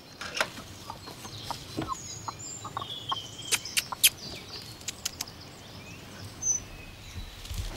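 Rhode Island Red cross White Wyandotte pullets clucking inside a wooden slatted crate, with scattered sharp taps, a small cluster of them about halfway through.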